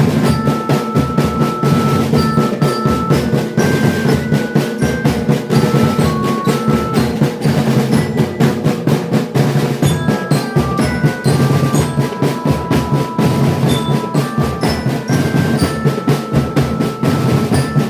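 Marching drum band playing a song: fast, steady snare and bass drum strokes with drum rolls, under a melody of short held notes.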